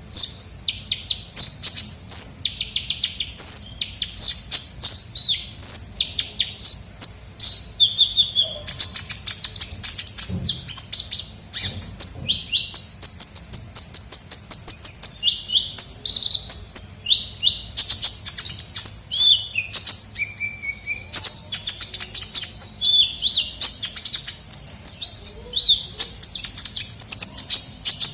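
Kolibri ninja sunbird singing: a fast, unbroken run of high-pitched chirps, twitters and trills, with a longer, even trill around the middle. It is played as a lure call ('suara pikat').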